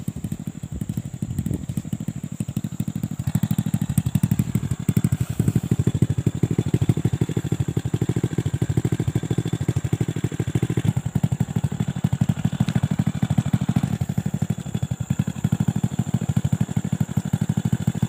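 Motorcycle engine running as the bike is ridden, heard from the rider's seat: a rapid, even beat of exhaust pulses that grows louder about three seconds in.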